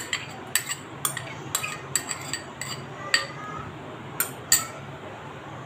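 Metal spoon clinking and scraping against a glass as ginger-garlic paste is scraped out into the pot: a run of irregular sharp clinks, the loudest about three and four and a half seconds in.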